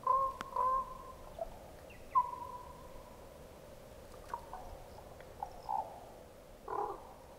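Common raven calling faintly: a few hollow, pitched calls, one held for most of a second about two seconds in, then a few shorter, fainter notes.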